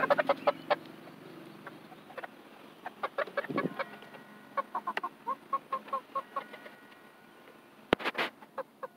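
Chickens clucking in short, soft, repeated notes, with a run of about three or four clucks a second in the middle. A dull thump comes about three and a half seconds in, and a sharp click near the end.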